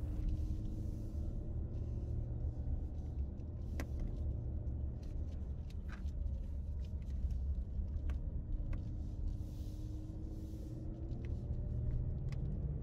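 Car engine and road rumble as the car labours up a steep mountain road. A faint engine note rises slowly near the end, with a few light clicks.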